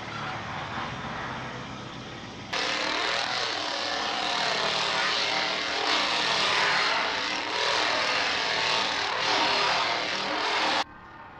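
A quieter steady engine hum, then about two and a half seconds in a much louder engine sound cuts in suddenly, its pitch wavering up and down, and cuts off just as suddenly near the end.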